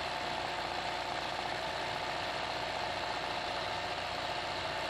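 Sewing machine running steadily at speed during free-hand hoop embroidery, its needle making a fast, even chatter over a steady hum.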